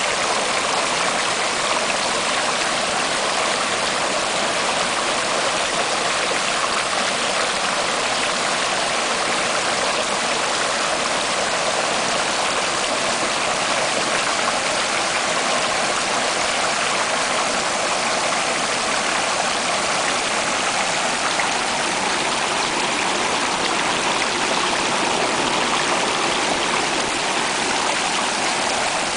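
Water cascading and splashing over rocks in a small waterfall, heard close up: a steady, unbroken rush.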